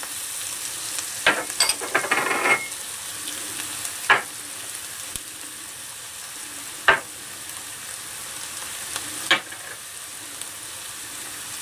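Diced onions frying in ghee in a pan, a steady sizzle, as ground spices are tipped in from small glass bowls. A brief rattle about two seconds in and several sharp knocks a few seconds apart punctuate it.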